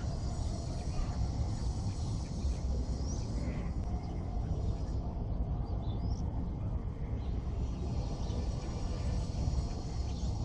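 Outdoor lakeside ambience: a steady low rumble, with a few faint short bird chirps about three and six seconds in.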